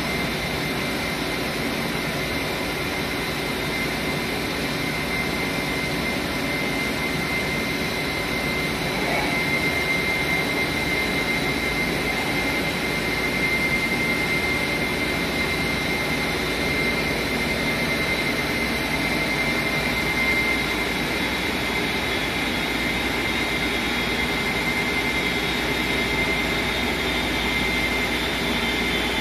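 Plastic-recycling extruder line with its screen changer running, discharging molten plastic: a steady machine drone with a constant whine over a low hum.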